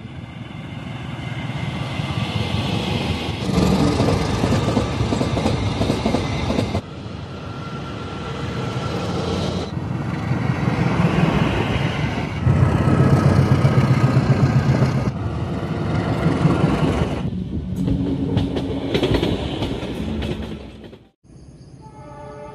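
A passing train heard close up: wheels clattering over the rails with a diesel locomotive running, in several clips joined by abrupt cuts. Near the end the train sound cuts out briefly, and a quieter sound of steady held tones takes over.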